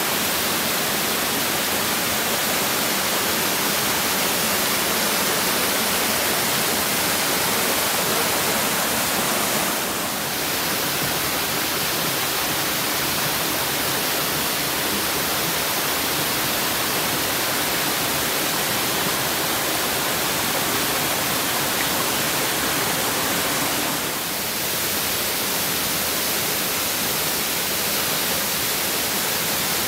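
Waterfall: a loud, steady rush of falling water, dipping slightly twice.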